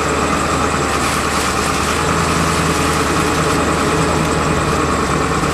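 Truck engine running steadily as the truck drives along the field edge.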